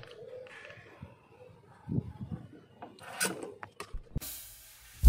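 Scattered light clicks and taps from a plastic syringe being handled in a plastic funnel on a radiator filler neck, with a short hiss about four seconds in.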